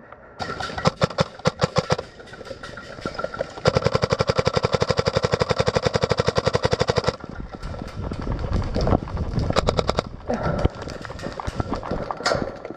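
Airsoft guns firing: scattered single shots, then one long rapid full-auto burst of about three and a half seconds, then more irregular shots.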